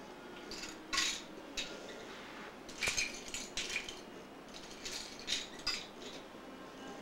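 Small plastic toy pieces clicking and clattering as children handle them, in irregular short bursts, loudest about a second in and again around three seconds in.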